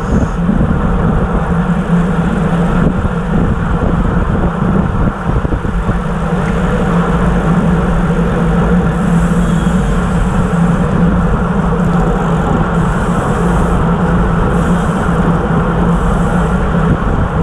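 Steady wind rush over the bike-mounted camera's microphone with tyre hum on asphalt from a road bike riding at about 26 mph in a racing bunch. Several short high buzzing bursts come in the second half.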